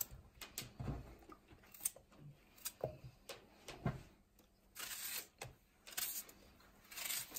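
Faint sounds of a kitchen knife cutting carrot and onion held in the hand, with the cut pieces dropping into the dish: scattered light taps and clicks, and a few short crisp rustles near the end.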